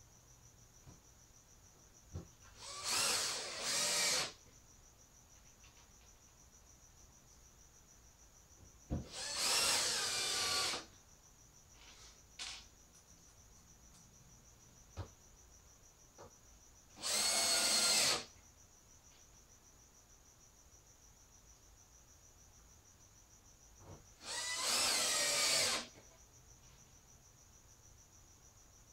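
Cordless drill/driver driving screws through the door hinges into plywood. Four short runs of the motor, each a second or two long; the first comes in two quick pulses. Small clicks of handling come between the runs.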